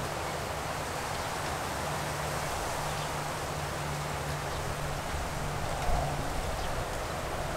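Steady hiss of light rain with wind stirring palm fronds, and a low rumble of wind underneath.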